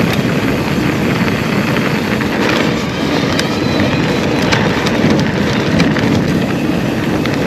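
Wind rushing over the microphone and tyres rumbling over a rough trail on an electric mountain bike riding downhill, with scattered clicks and knocks from the bike rattling over the bumps.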